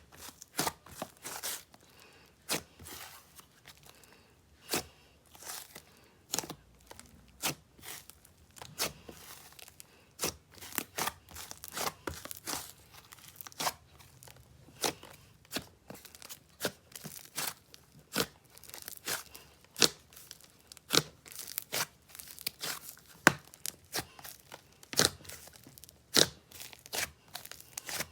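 Inflated butter slime being squished and poked by hand, giving off a dense, irregular run of sharp crackles and small air-bubble pops, several a second.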